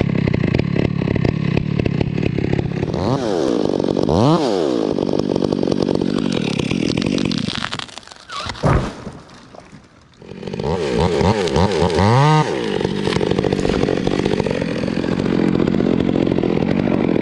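Two-stroke chainsaw running and being revved up and down several times. About halfway through it drops low for a couple of seconds, then picks up again, is revved, and runs steadily.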